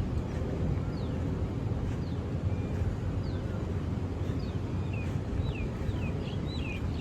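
A bird calling in short, high, falling whistles, about one a second and coming quicker near the end, over a low steady rumble.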